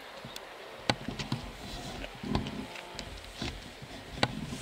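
A football being kicked: a sharp thud about a second in and another near the end, with a few distant shouts from players between them.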